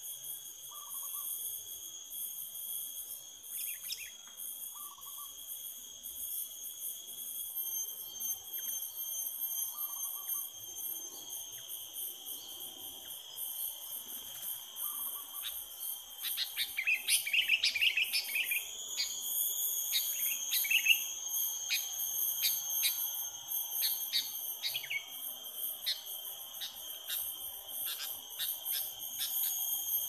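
Insects trilling steadily at several high pitches, with birds chirping over them: a loud burst of calls a little past halfway, then short, sharp chirps repeating until near the end.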